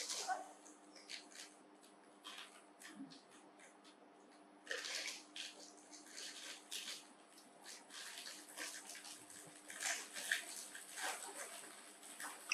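Crinkly plastic packet of dry instant noodles rustling and crackling in hands, in irregular bursts with louder clusters about five seconds in and again near ten seconds.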